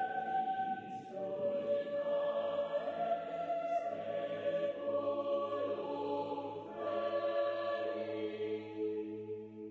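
Slow choral music with long held chords that change every second or two, fading near the end.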